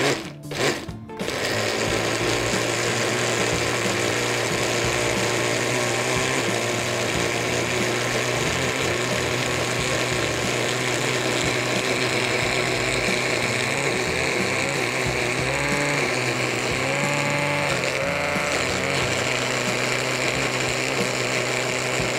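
Countertop blender pulsed twice, then running steadily from about a second in, grinding roasted red peppers and peanuts into a thick sauce. The motor is straining on the stiff mixture, which the cook says needs more water.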